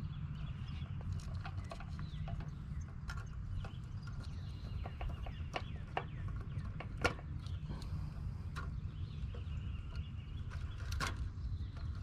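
Scattered clicks and light taps of wire connectors and a hand tool being handled at the wiring of a heat pump's outdoor unit, over a steady low hum; the sharpest clicks come about seven and eleven seconds in.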